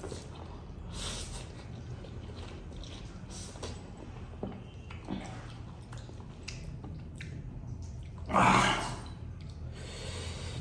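A man eating instant noodles: quiet slurping and chewing with breathing through the nose, and one louder, breathy sound about eight seconds in.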